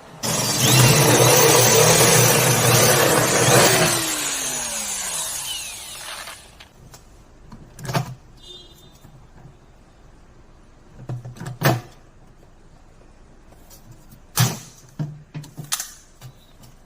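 Angle grinder cutting through galvanized sheet-metal ductwork for about four seconds, then its disc spinning down with a falling whine as the trigger is released. A few sharp knocks of sheet metal being handled follow.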